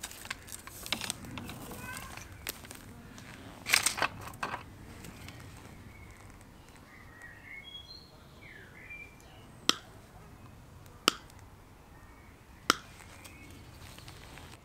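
A hand wire stripper snapping shut on electrical cable: three sharp clicks about a second and a half apart in the second half, after a stretch of rustling as the cable is handled over gravel. A bird chirps faintly in between.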